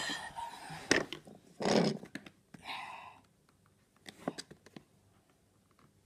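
Plastic knocks and clicks from a Sebo vacuum cleaner's body being handled while a part on it is prised at, with a short scraping burst about two seconds in. The handling noises die down about halfway through.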